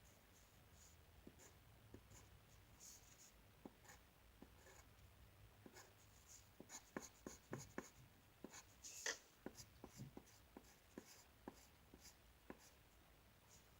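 Faint scratching of a drawing tool on paper as lines are sketched, with many short ticks and strokes that come thickest midway through.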